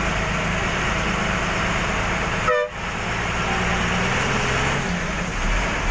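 Steady engine and road noise from inside a moving bus, with a short vehicle horn toot about two and a half seconds in. The sound drops out for a moment right after the toot.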